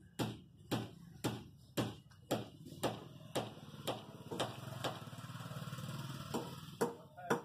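Steady, evenly spaced knocking, about two sharp strikes a second, like hammer blows. In the middle an engine hum swells and fades.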